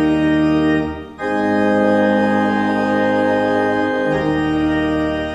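Organ music playing full, sustained chords, the chord changing about a second in and again about four seconds in.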